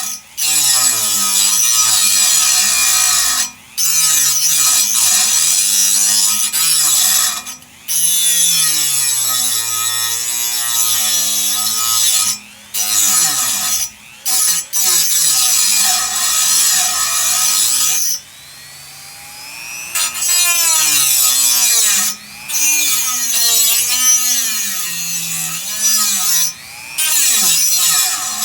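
Power tool with an abrasive cutting wheel cutting through a metal bar, the motor's pitch dipping and recovering as the wheel bites, with short stops every few seconds.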